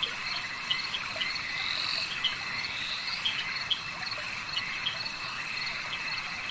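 Night chorus of frogs and crickets: a steady high trill with short calls repeating irregularly, about two a second.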